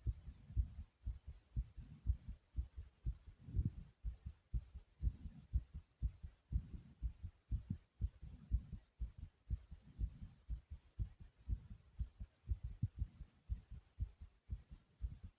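A human heartbeat, pounding: repeated low thuds, each heartbeat heard as a close pair of beats.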